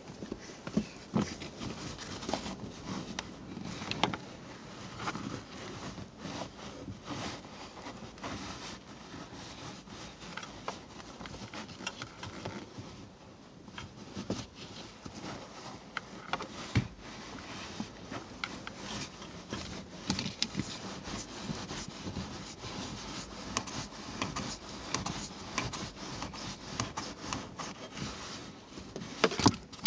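Carbon-fibre seat heater pad rubbing and crinkling against car seat upholstery as hands work it down inside the seat backrest: a continuous scratchy rustle with frequent small crackles.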